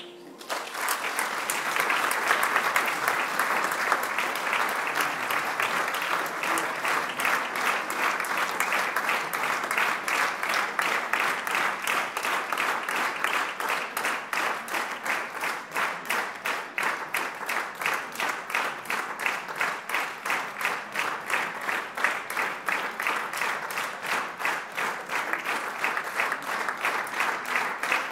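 Audience applauding, the clapping first scattered and then falling into rhythmic clapping in unison after several seconds.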